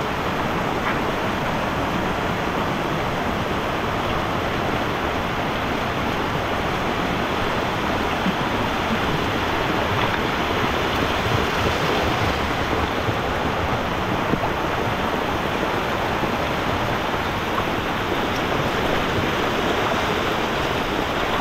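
Brown floodwater rushing down a washed-out dirt road in heavy rain: a steady, dense rushing of water that does not let up.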